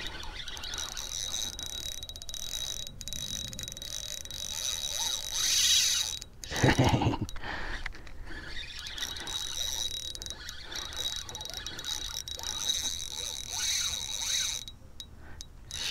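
Spinning fishing reel being cranked as the line is retrieved, its gears giving a steady fine ticking whine. A brief louder thump comes about halfway through.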